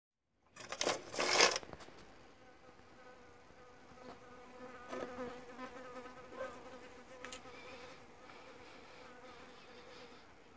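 A brief loud rustle or scrape about a second in, then a faint, steady buzzing hum with a clear pitched tone.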